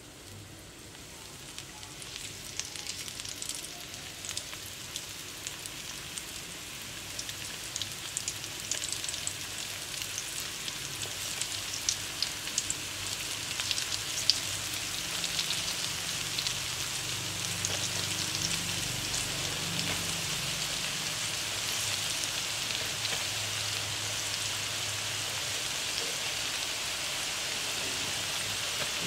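Flour-coated banana stem strips deep-frying in hot oil in a wok, a steady sizzle with scattered crackling pops. The sizzle grows louder over the first ten seconds or so as the pieces go into the oil, then holds steady.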